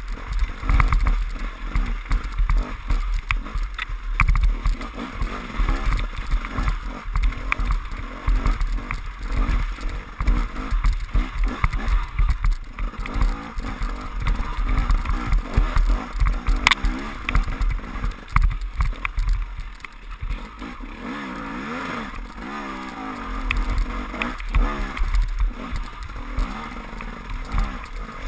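KTM enduro motorcycle engine running hard along a muddy forest track, revving up and down with the throttle, over a heavy low rumble. Scattered sharp knocks, the loudest about seventeen seconds in.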